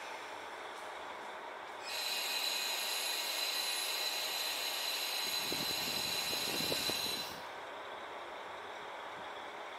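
KiHa 40 diesel railcar standing at a station platform with its engine running. About two seconds in, a loud hiss starts, with steady high ringing tones in it, and cuts off after about five seconds.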